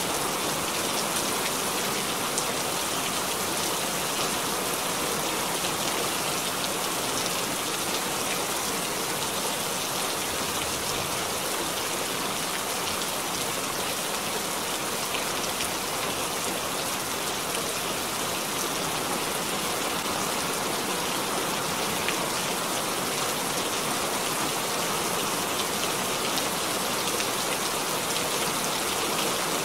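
Steady rain falling: an even hiss with scattered faint drop taps.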